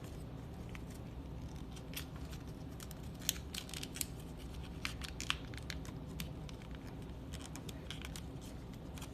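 Folded sheets of paper rustling and crinkling as one folded piece is tucked inside another, with many small sharp crackles over a low steady hum.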